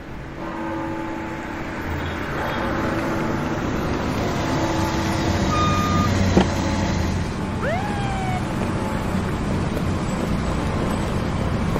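Road traffic noise: a steady rumble of passing vehicles, with a short high tone about six seconds in and a brief squeal a couple of seconds later.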